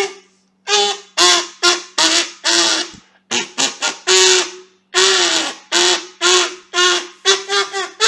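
Kazoo blown in a quick string of short, nasal buzzing notes, most held on about the same pitch, a few starting higher and dropping. A faint steady low hum sits underneath.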